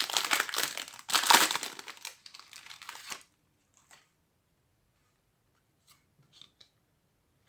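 Plastic card-pack wrapping crinkling and tearing as it is pulled open and handled, loudest about a second in. It stops after about three seconds, leaving only a few faint ticks.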